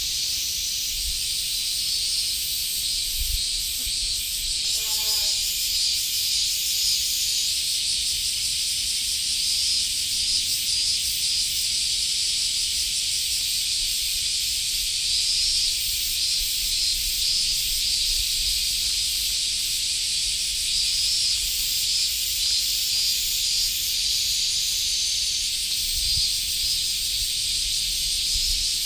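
Dense chorus of insects shrilling steadily at high pitch, several singers overlapping, each holding its own note.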